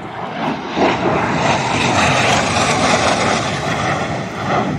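Fighter jet flying a low pass, its engine noise swelling over the first second, holding loud, then easing slightly near the end.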